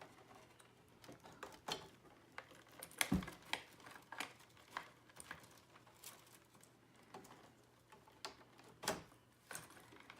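Small plastic clicks and snaps at irregular intervals as wire-harness connectors are worked loose and unplugged from a pachinko machine's circuit board, with one duller knock about three seconds in.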